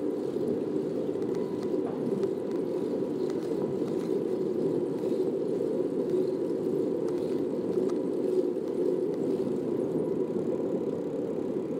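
Steady rolling noise of a bicycle riding across stone paving slabs, with a few faint ticks.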